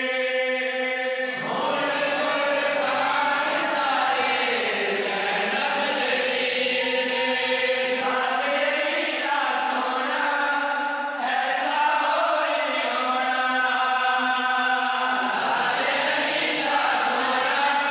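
A group of male voices chanting a Punjabi devotional kalam (naat) together, unaccompanied, in a slow melody with long held notes.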